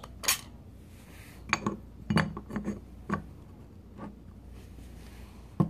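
Hard metal parts of a Hitachi starter motor clinking and knocking together while the armature housing is fitted onto the planetary-gear housing: a string of separate sharp clicks, a few bunched about two seconds in and one last knock near the end.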